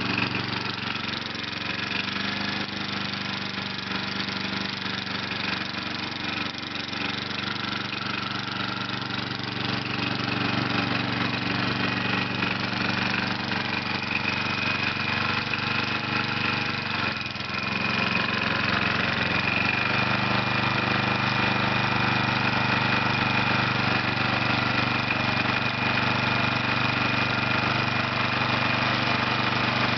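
Old single-cylinder Briggs & Stratton 8 hp engine on a Murray riding mower running steadily, with a rod knock that the owner puts down to a worn crankshaft and connecting rod riding on the aluminium. A little past halfway it briefly changes and then runs louder.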